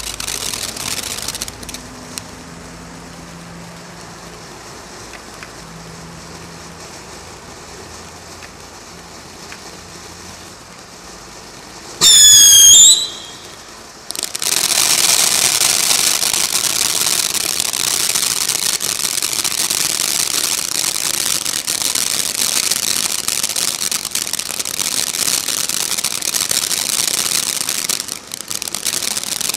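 Black Cat Bellagio firework fountain burning: a hissing spray of sparks drops to a softer fizz, then about twelve seconds in a loud, wavering shrill whistle sounds for about a second. A long, loud, steady hiss of spraying sparks follows and fades near the end.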